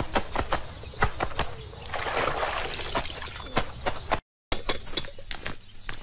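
Wet clothes being scrubbed and slapped by hand in a tub of soapy water: a quick, irregular run of wet slaps and sloshing, busiest about two seconds in. The sound cuts out completely for a moment a little after four seconds.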